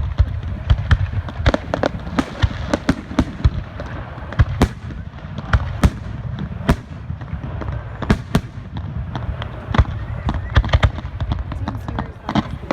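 Fireworks going off, a rapid irregular run of sharp bangs and crackles, several a second at times, over a constant low rumble.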